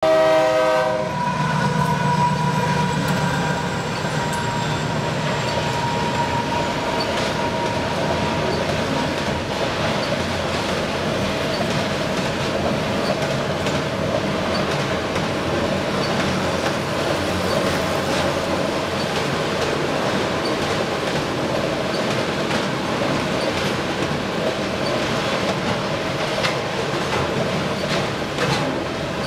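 CSX freight train of autorack cars passing: a horn sounds and cuts off about a second in, then steady rumble of steel wheels on the rails with repeated clicks over rail joints, and a thin high wheel squeal over the first few seconds.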